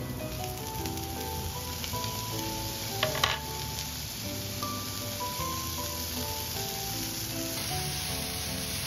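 Oyster mushroom and sausage pieces sizzling in oil in a nonstick frying pan. There is a brief clatter about three seconds in, and a wooden spatula stirs them near the end.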